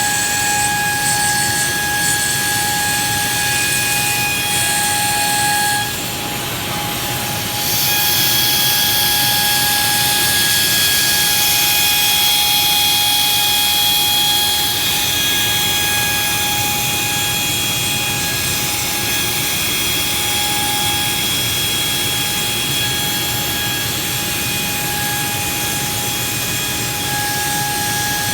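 A motor running steadily with a high whine and a hiss, dipping and changing briefly about six seconds in.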